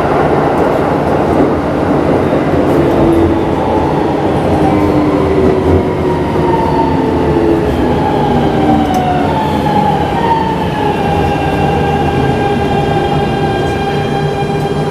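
Keikyu 1000 series train with a Siemens GTO VVVF inverter, its traction inverter singing in stepped tones that glide downward over the steady rumble of the running train, as it slows under regenerative braking.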